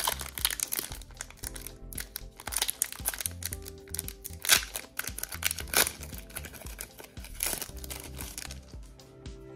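Foil Pokémon booster pack wrapper crinkling and tearing as it is opened, in a run of sharp crackles, over background music with low held notes.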